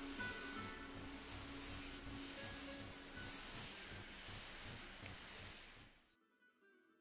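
Pencil lead, and the hand gliding on its little finger, rubbing across drawing paper in long back-and-forth strokes while ruling freehand straight lines, about one stroke a second. The strokes cut off suddenly about six seconds in.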